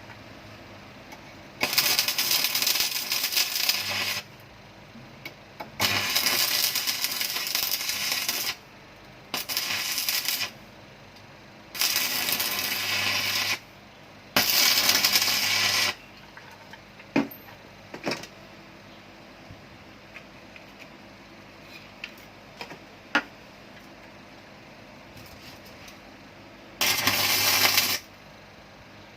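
Electric arc welding with a Muller welding machine: the arc sizzles in six short runs of one to three seconds each, with a low hum under each run and quiet gaps between.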